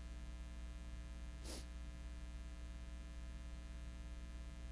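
Steady electrical mains hum from the microphone and sound system during a pause, with one short breath about a second and a half in.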